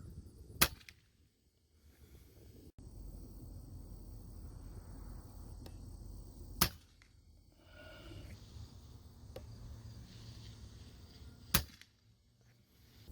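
Three shots from an FX Impact PCP air rifle, each a single sharp crack, about five to six seconds apart.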